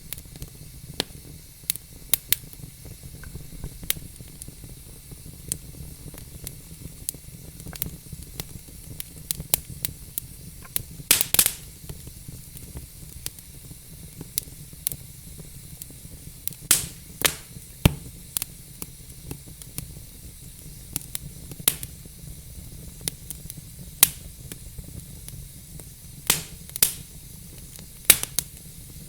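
Wood fire crackling in a fireplace: a steady low rumble and soft hiss with sharp pops at irregular intervals, including a quick cluster of pops about eleven seconds in.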